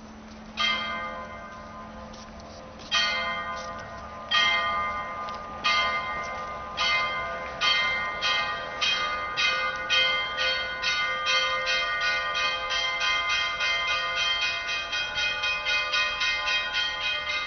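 Church bells of the Alexander Nevsky Cathedral ringing. The strikes come slowly at first, a second or two apart, then quicken to about two a second, each one ringing on into the next.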